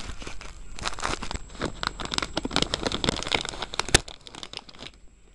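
Plastic wrapping around a graphics card crinkling and crackling as it is handled, with one sharp click about four seconds in, then quieter.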